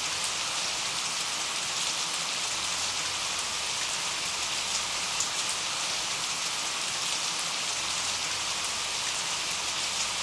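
Steady rain falling and pattering on a surface, with scattered individual drops ticking.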